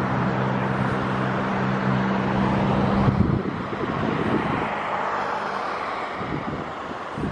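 Vehicle engine running with a steady low hum that drops away about three seconds in, leaving wind and road noise on the microphone.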